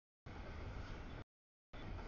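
Steady low noise of a double-stack freight train rolling past, broken by audio dropouts. The sound cuts out completely for about half a second at the start, runs for about a second, then cuts out again before returning near the end.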